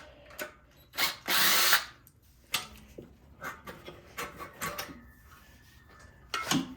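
Power drill running in short bursts, spinning out the bolts that hold the exhaust on, followed by light clicks and knocks of metal parts being handled.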